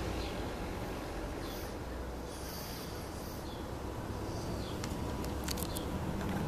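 Steady low rumble of harbour ambience with an even hiss, and a few sharp clicks about five seconds in.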